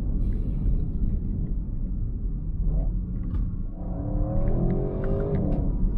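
Audi RS6 Avant's engine heard from inside the cabin while accelerating hard: a deep, steady rumble, with the engine note climbing in pitch about four seconds in.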